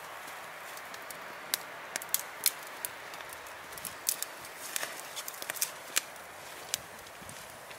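Small wood fire of split kindling crackling, with sharp pops coming at irregular moments over a steady hiss.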